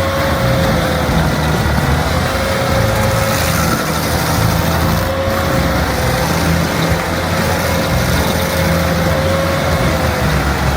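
Heavy machine's engine running steadily under a low rumble, with a steady whine that holds one pitch.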